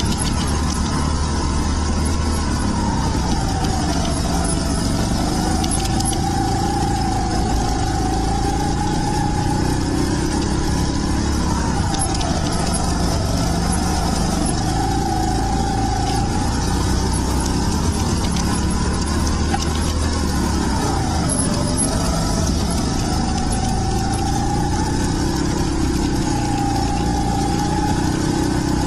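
Rental go-kart engine running hard, heard from the kart itself: its pitch drops as the kart slows for a corner and climbs again as it accelerates out, three times over, under steady low rumble and wind noise.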